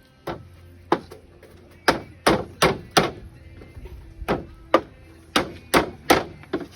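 Hammer striking construction materials: about a dozen sharp, irregularly spaced blows, some in quick runs of three or four.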